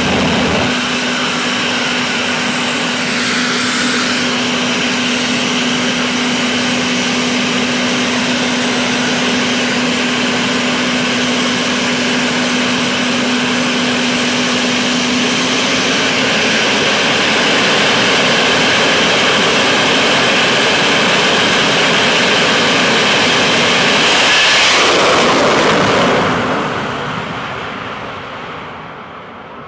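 Jet dragster's turbine engine running at the start line with a steady high whine. About 24 seconds in it swells to a loud blast as the car launches, then fades fast as it runs away down the strip.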